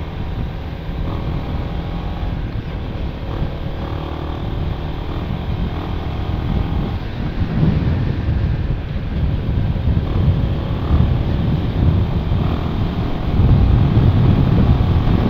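Honda Winner X motorcycle riding along, its engine running beneath heavy wind rumble on the microphone, getting louder near the end.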